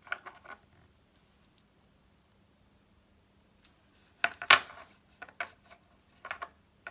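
Small metal locket pieces clicking and tapping against each other and the tabletop as they are handled. There are a few light clicks at the start and a louder burst of clicks a little past halfway, then scattered taps.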